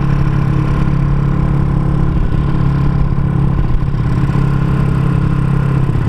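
Engine of a Honda Supra motorcycle, bored out to 200cc, running at a steady pace through a CJDW aftermarket exhaust, with the pitch wavering slightly partway through.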